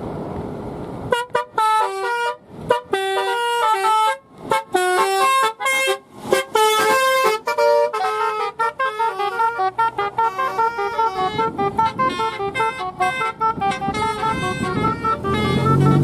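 Car-mounted telolet horn playing a fast melody of stepped, bright multi-tone notes, starting about a second in, with short breaks between phrases. A car engine rises in pitch under it near the end.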